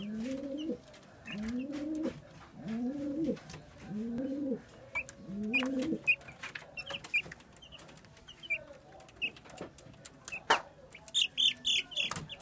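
Eight-day-old broiler chicks peeping in short high chirps, with a loud quick run of peeps near the end. In the first half a low call that rises and falls repeats five times, about every 1.3 seconds.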